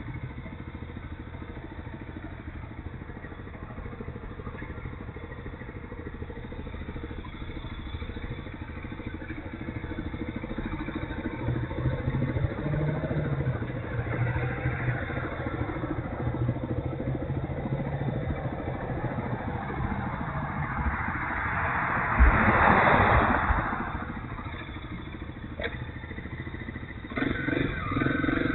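Kawasaki KLX250S dual-sport's single-cylinder engine idling while stopped in traffic. A louder rushing noise swells and fades about two-thirds of the way in. Near the end the engine gets louder as the bike moves off.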